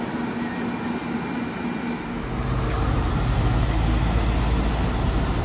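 Road traffic noise from passing vehicles, with a deeper, louder low rumble starting about two seconds in.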